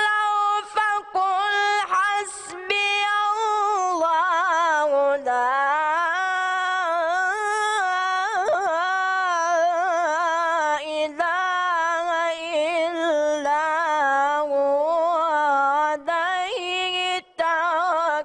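A boy reciting the Quran in a high voice, in the melodic chanted style, drawing out long ornamented notes whose pitch wavers and slides, with a few brief breaks for breath.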